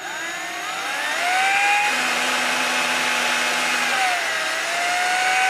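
Cordless drill running a small pilot bit into the plastic housing of a Canon 580EX speedlite flash. Its motor whine climbs in pitch as it spins up, then holds steady, dipping briefly about four seconds in.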